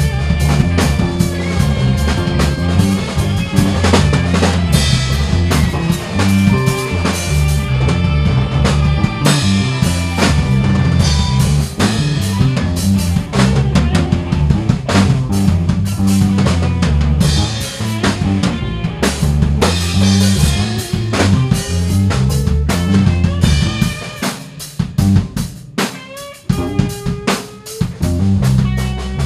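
Band music: a drum kit with snare, bass drum and rimshots over electric bass and electric piano, organ and guitar. About 24 seconds in the bass drops out and only scattered drum hits and a held note remain, before the full band comes back near the end.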